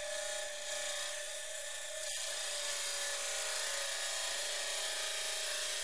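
High-speed abrasive wheel on a 1700 RPM Baldor buffer motor grinding the profile of a steel knife blank: a steady grinding hiss over an even whine, a little louder from about two seconds in. The blade is fed slowly so the wheel is never put in a bind.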